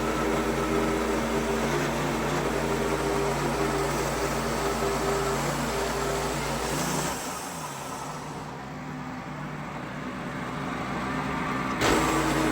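Gas engine of a log-milling saw running steadily. About seven seconds in it drops in pitch and quiets, then near the end it picks back up with a sharp clunk.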